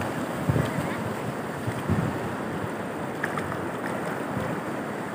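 Swollen, muddy river in flash flood rushing steadily, with wind buffeting the microphone in a couple of low thumps.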